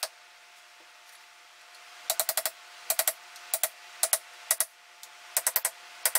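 Hammer driving pronged T-nuts into a wooden strip resting on a steel anvil, striking a bolt set in the T-nut: quick groups of two to five sharp metallic taps, starting about two seconds in.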